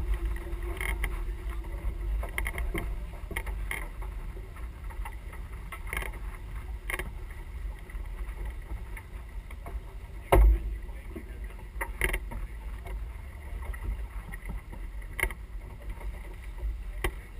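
Sailing yacht under way: wind rumbling on the microphone over the rush of the boat moving through the water, with scattered knocks and clicks from the deck and one louder thump about ten seconds in.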